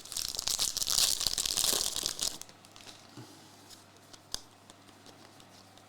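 A foil trading-card pack wrapper being torn open and crinkled for about two and a half seconds. After that it is quiet apart from one sharp tick a little past four seconds in.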